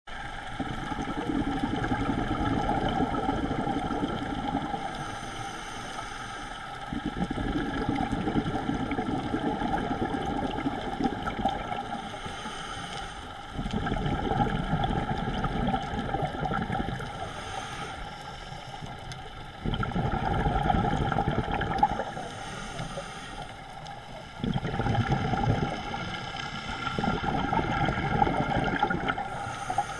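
Heard through an underwater camera housing: a scuba diver breathing through a regulator, with long spells of exhaled bubbles gurgling and short, quieter inhale hisses between them, repeating about every five to six seconds.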